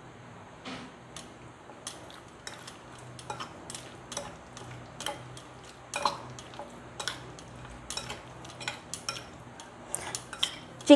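Raw chicken pieces being mixed with spice marinade in a glass bowl, with irregular light clicks and taps against the glass.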